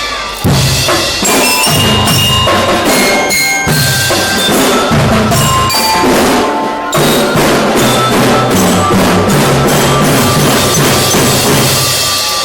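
Children's marching drum band playing: drums beat steadily under short, bell-like melody notes, with brief breaks in the drumming about half a second in and about seven seconds in.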